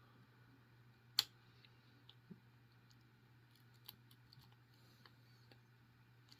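Small clicks and ticks of a lock pick working the pins inside a plastic-bodied Master Lock 410 padlock: one sharp click about a second in, then a scatter of faint ticks.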